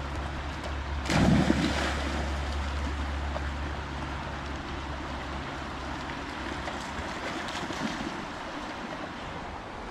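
A dog jumps into a river with one loud splash about a second in, then swims while the river keeps up a steady rush. A low wind rumble on the microphone fades out about halfway through.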